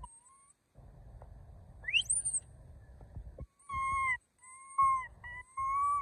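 Young macaque calling: a short coo at the start, a quick rising squeal about two seconds in, then four short, clear coos one after another in the last two seconds.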